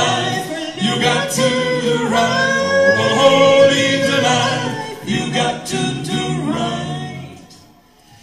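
Male vocal quartet singing a cappella in close harmony into handheld microphones, amplified through PA speakers, holding long sustained chords. The singing dies away about seven seconds in.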